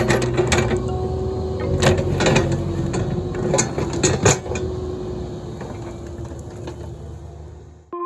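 Cat 305 mini excavator's diesel engine running steadily, with sharp metal clanks and knocks from the working machine over the first four seconds or so. The sound fades over the last few seconds and cuts off just before the end.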